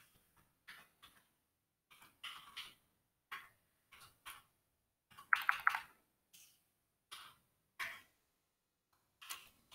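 Computer keyboard typing: irregular single keystrokes, with a quick run of several keys about five seconds in.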